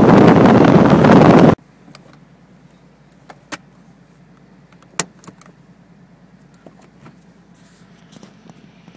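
A loud rush of noise that cuts off suddenly about a second and a half in, then a few sharp metallic clicks from a Nissan 370Z: two close together about three and a half seconds in, a louder single click at five seconds, and a few faint ticks after.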